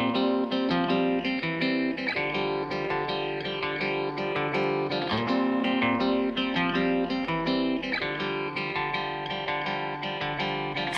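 Background music: guitar-led instrumental with plucked and strummed notes.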